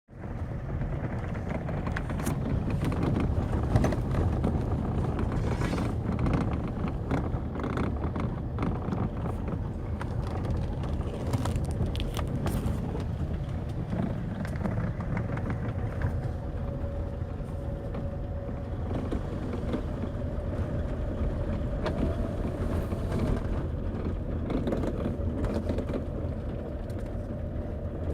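Fiat Scudo van driving with steady road rumble, broken by irregular sharp knocks from a worn steering shaft, the knock that the owner later repaired.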